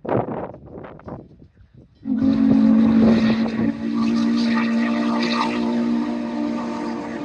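Norfolk & Western 611 steam locomotive blowing its whistle on approach: a loud, steady chord of several low tones that comes in about two seconds in and is held. Before it, a few short noisy bursts.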